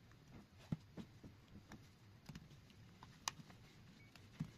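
Near silence with a few faint, scattered clicks and soft low taps at irregular intervals.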